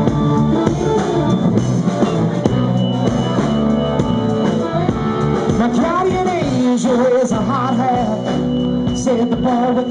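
Live rock band playing a song's instrumental opening on drum kit, electric guitar, keyboard and saxophone. From about six seconds in, a wavering melody line rises above the band.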